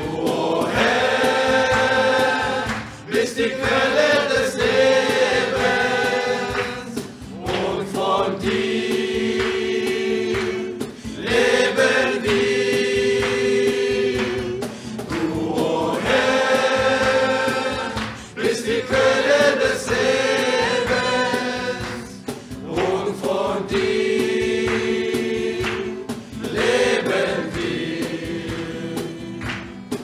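A small group singing a German worship song together, in phrases about four seconds long with held notes and a short break between them.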